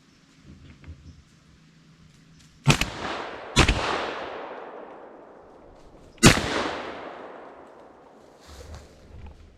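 Three shots from a Browning Maxus 2 semi-automatic 12-gauge shotgun firing 6-shot: the first about two and a half seconds in, the second about a second later, the third some two and a half seconds after that. Each shot echoes and dies away over a couple of seconds.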